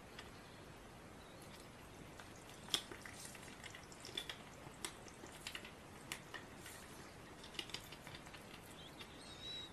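A white domestic duck's bill nibbling at a person's fingers: soft, irregular clicks, loudest about three seconds in, then a short high peep near the end.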